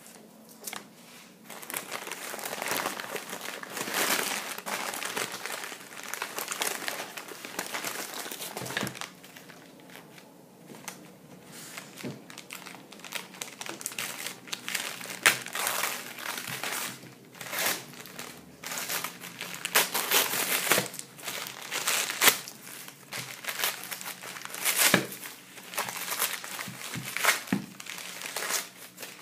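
Newspaper wrapping being torn open and crumpled by hand: an irregular, continuous run of crinkling and paper rustle, with sharper rips now and then.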